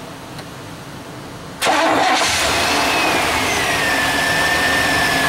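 Truck engine starting about a second and a half in: it catches at once and settles into a steady idle, starting readily with its battery connections freshly cleaned. A whine runs over the idle and slowly falls in pitch, which the owner takes for the alternator charging under load.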